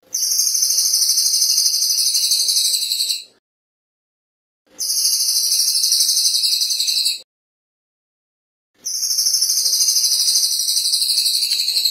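Cililin (crested jay) calling: a very high, fast rattling trill given three times, each lasting about three seconds with short pauses between.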